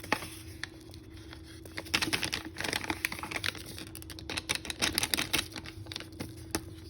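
Dry powdered sauce mix being shaken and sprinkled from its packet over potatoes in a dish: a quick run of light ticks and rattles, thickest in the middle few seconds.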